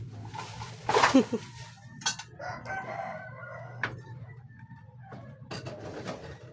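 A rooster crowing, with a louder brief noise about a second in.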